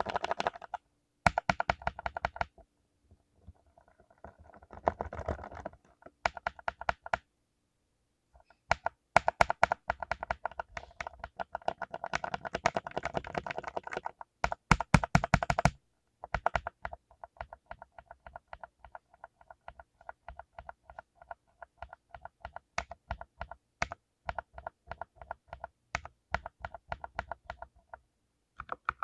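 Mechanical keyboard with blue clicky switches being typed on: fast runs of key clicks in bursts with a short pause about a third of the way in, then slower single keystrokes at roughly two or three a second.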